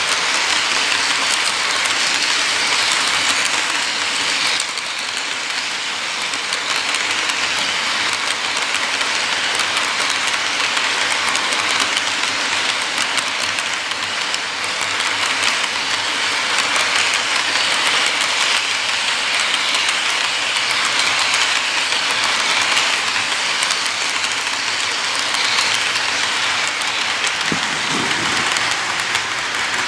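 Model train freight cars rolling past on the track: a steady rolling rush of small metal wheels on rail, with a fast run of clicks over the rail joints.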